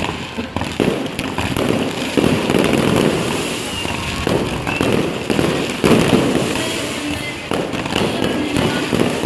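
Fireworks display: many shells bursting one after another in sharp bangs and pops, with crackling between them. The loudest bangs come about two seconds in and about six seconds in.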